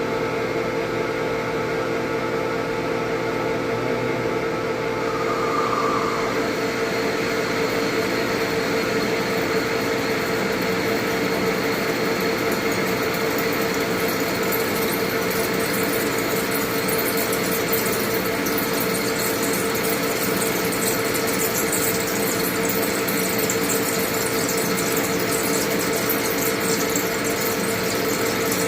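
Manual lathe running with a steady whine while an indexable carbide insert drill (U-drill) bores into the workpiece. The sound grows a little louder and fuller about five seconds in.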